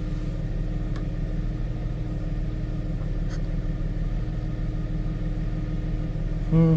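2000 Jaguar S-Type's 3.0 V6 engine idling steadily, with a couple of faint clicks.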